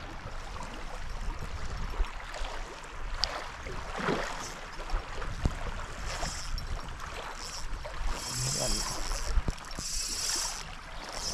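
Wind and small waves washing onto a gravel shore while a spinning reel is wound against a hooked fish, with scattered light clicks. Short, high-pitched hissing bursts come several times in the second half.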